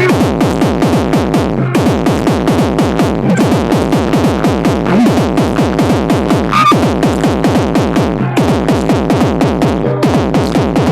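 Loud electronic dance music played over a DJ sound system, with a fast, even beat and repeated downward-sliding synth tones. The beat drops out briefly about two seconds in and again about eight seconds in.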